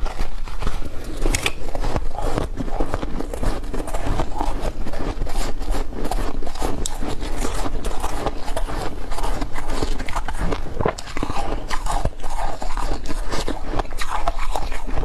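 Close-miked biting and chewing of soft crushed ice: a dense, continuous crunching and crackling of big mouthfuls, with no pauses.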